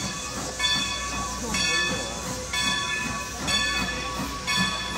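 Steam locomotive approaching slowly, its bell ringing about once a second over a steady hiss of steam. People's voices can be heard faintly.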